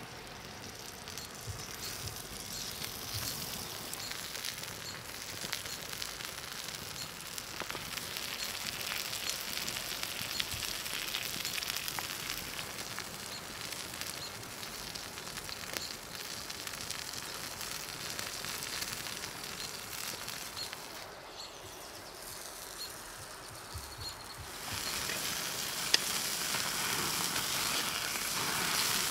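Steak fillet sizzling as it sears on a hot stone, with the wood fire crackling alongside. The sizzle drops back for a few seconds near the end, then returns louder, with one sharp click shortly after.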